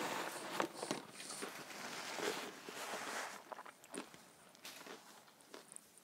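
Close-up chewing of crunchy breaded schnitzel and fries: irregular crunches and wet mouth clicks, busier for the first few seconds and then sparser and fainter.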